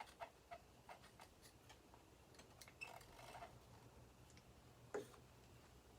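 Faint, irregular ticks and scratches of a metal pick scraping old sealant out of a Husqvarna 266 chainsaw crankcase around the crankshaft bearing, with one sharper click near the end.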